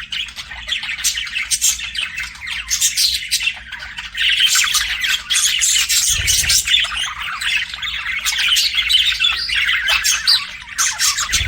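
Budgerigars chirping and squawking in a rapid, continuous chatter.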